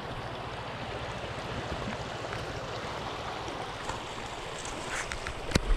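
Shallow creek running steadily over stones and gravel, with a sharp knock near the end.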